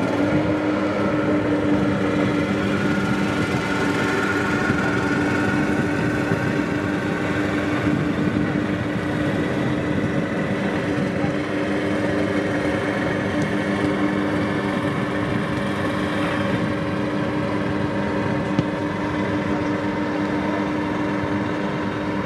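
A motor running steadily at one constant pitch, a droning hum that sets in abruptly at the start.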